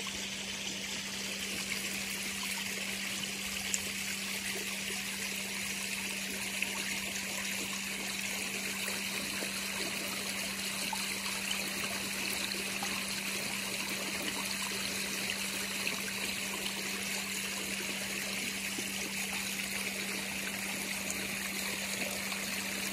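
Water from a koi pond's waterfall, trickling and splashing steadily, with a steady low hum underneath.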